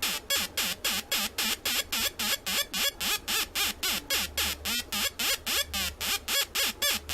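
Atari Punk Console, a two-555-timer square-wave noise synth, putting out a fast, even stream of short buzzy electronic chirps, about four or five a second, each sweeping in pitch.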